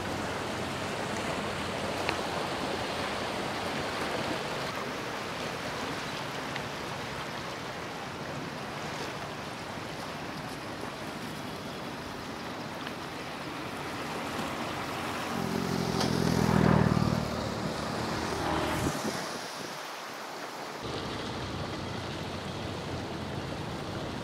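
Fast-flowing floodwater of a swollen river rushing past a bridge pier, a steady watery rush with wind noise on the microphone. About two-thirds of the way through, a louder low droning sound swells and fades over a couple of seconds.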